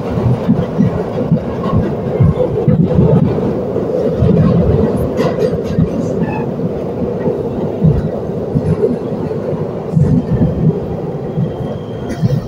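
New York City 1 subway train, an R62A car, running on the track, heard from inside the car: a steady loud rumble with irregular low surges and clicks from the wheels. Near the end a thin high whine sets in.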